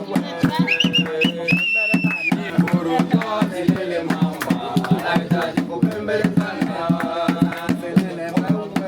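A group of people singing together with rhythmic percussion, in the manner of a traditional Chaga work song sung while coffee is roasted. A high, held note rises over the voices about a second in.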